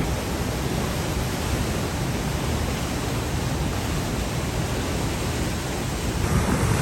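Waterfall's rushing water, a steady even hiss.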